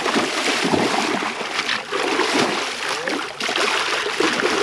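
Water splashing and sloshing, with a couple of sharper splashes, as a redfish thrashes while it is put on a stringer.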